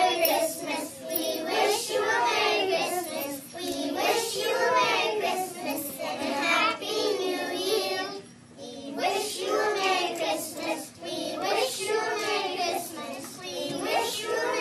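A group of young children singing together, with a short break in the singing about eight seconds in.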